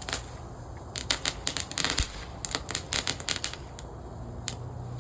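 Small consumer firework crackling: a rapid run of sharp pops and crackles starting about a second in and lasting about two and a half seconds, with a few scattered pops around it.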